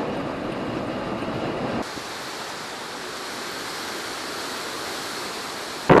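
Storm-driven surf breaking against a concrete harbour seawall, a steady heavy rush of water. About two seconds in, the sound switches abruptly to a quieter, thinner hiss, and right at the end a loud gust of wind hits the microphone.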